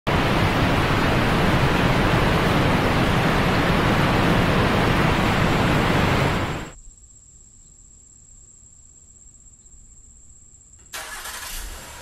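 Loud, steady rush of a waterfall's falling water that cuts off suddenly about two-thirds of the way through. A faint, high, steady whine is left. A louder hiss comes in about a second before the end.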